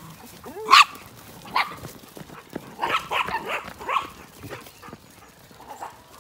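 Small herding dog giving short, sharp yips and barks. The loudest comes about a second in, then another, and a quick cluster follows around three to four seconds in.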